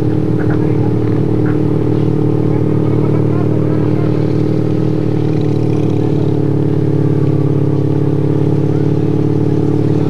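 Steady drone of motor vehicle engines running at a slow, even pace, from the escort motorcycles and camera vehicle moving along with the lead runners.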